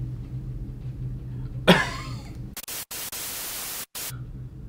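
A short cough, then about a second and a half of TV static hiss from a glitch transition effect, broken by brief dropouts and cutting off suddenly.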